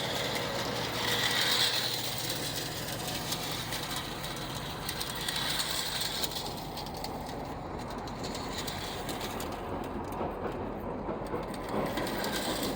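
Clockwork spring motor of a 1914 American Flyer O gauge wind-up toy locomotive running, its gears whirring with fast, dense clicking as it runs on its track.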